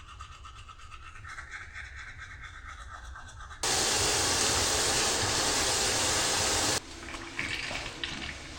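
A loud, steady rush of water lasting about three seconds that starts and stops abruptly, after a few seconds of faint background.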